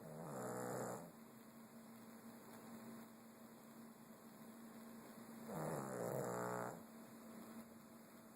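A sleeping pet snoring: two snores about five seconds apart, each lasting about a second, over a steady hum.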